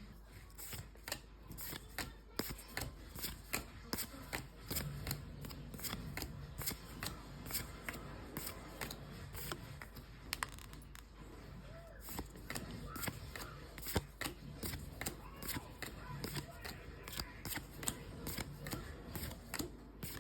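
Trading cards being handled and flicked through one after another, making a continuous run of small paper clicks and rustles.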